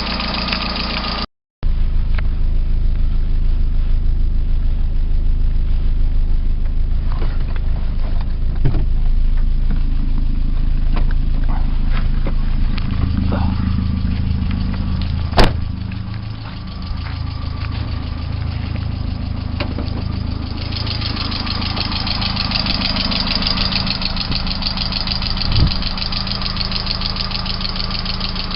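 VAZ-2112 (Lada 112) engine running with a knock from the cylinder head, which the owner says grows as the engine warms while oil pressure falls to about 1 kgf/cm² at idle, even after new hydraulic lifters, oil and filter. A sharp click is heard near the middle, and the high ticking gets stronger about two-thirds of the way through.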